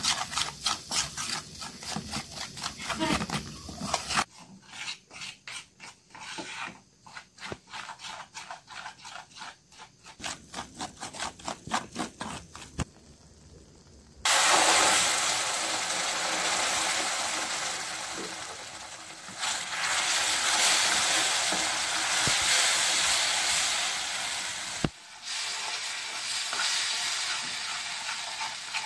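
Metal spoon stirring and scraping a thick, crumbly mixture in a non-stick frying pan, in quick rhythmic strokes. About halfway through, a steady sizzling hiss of the mixture frying starts suddenly and carries on.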